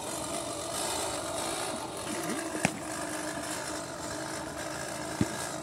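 Manual push reel lawn mower whirring steadily as its blades spin and cut grass, with two sharp clicks about two and a half seconds apart.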